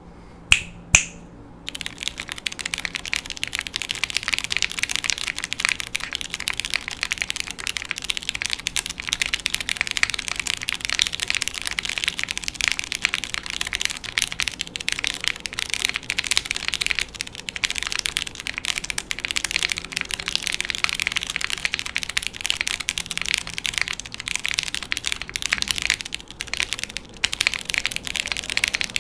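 Fast, continuous typing on a TKD Cycle7 mechanical keyboard with lubed Cherry MX Brown switches, an aluminium plate and GMK keycaps. The keys clack rapidly from about two seconds in, after two sharp clicks at the very start, with a faint steady hum underneath.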